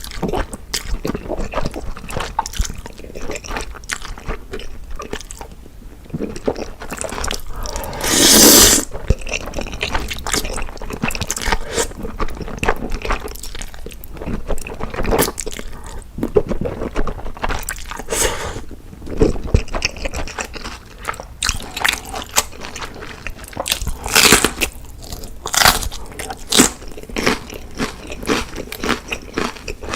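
Close-miked eating: repeated biting and chewing with crunching and wet mouth sounds, and a louder rush of noise lasting about a second, eight seconds in.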